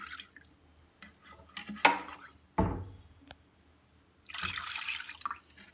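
Milk poured from glasses into a stainless steel saucepan, with a splashing pour at the start and another about four seconds in. Two sharp knocks in between, around two seconds in, as a glass is handled against the pan or counter.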